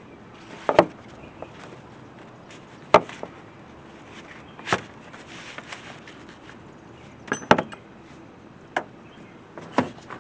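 A series of sharp plastic-and-metal clicks and knocks, about seven, spaced irregularly, as a stuck electrical connector on the engine's intake sensor is worked and pried at to unplug it.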